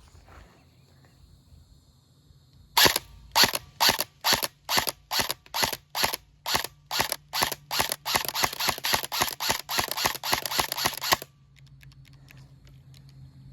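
Airsoft gun firing a long string of sharp single shots, about two to three a second at first and then faster, stopping suddenly about eleven seconds in.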